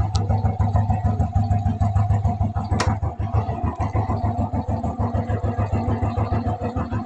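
Honda Blade 110 cc single-cylinder four-stroke motorcycle engine idling steadily, with even, rapid exhaust pulses. A single sharp click sounds a little before the middle.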